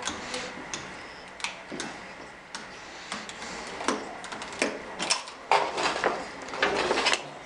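Irregular small metallic clicks, taps and clinks of hand tools and lock hardware being handled, coming thicker and louder in the second half.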